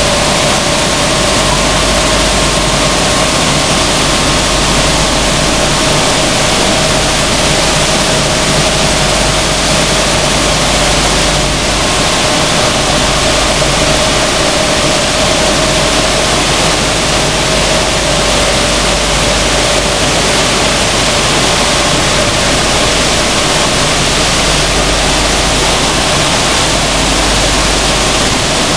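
Sunflower seed hulling machine running, with seeds pouring off its separator tray: a loud, steady rushing noise with a constant mid-pitched whine underneath.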